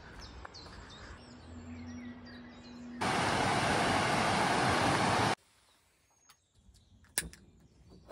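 Water pouring over a river weir: a loud, even rush that comes in suddenly about three seconds in and cuts off abruptly a couple of seconds later. It is preceded by a faint outdoor background, and near the end there is a single sharp click.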